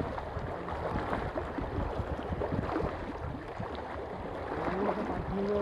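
Small sea waves lapping and splashing against shore rocks, with wind buffeting the microphone. A faint tone rises and then holds steady near the end.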